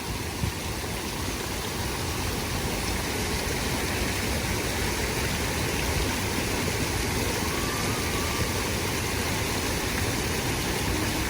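Steady rushing background noise with a low rumble underneath, unbroken throughout, with no distinct events.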